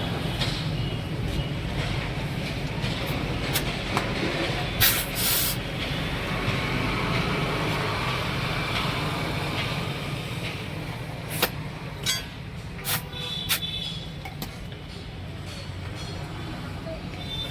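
Steady low rumble of a running vehicle engine, with a short hiss about five seconds in and several sharp knocks a few seconds later, typical of work at a tyre change.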